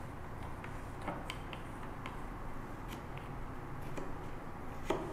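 Bench chisel paring thin shavings from a small wooden wedge by hand pressure: irregular light clicks and scrapes as the edge bites and slices the wood, a louder one near the end.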